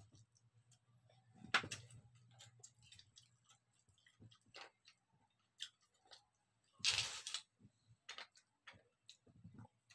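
Wooden chopsticks clicking and scraping against scallop shells as the meat is picked loose. Scattered light clicks, with a louder, longer rustling burst about seven seconds in.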